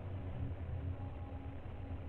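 Faint steady low hum and hiss: background noise picked up by a doorbell camera's microphone.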